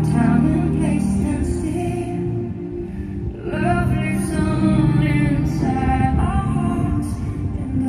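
Show music with singing: a sung melody over sustained accompaniment, dipping briefly and then swelling back up about three and a half seconds in.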